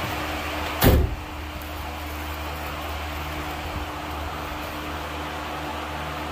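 Truck's front disc brake caliper clunking once, sharply and loudly, about a second in as the brake pedal is pressed to test whether the sticking caliper releases the rotor, with a fainter click near four seconds. A steady mechanical hum runs underneath.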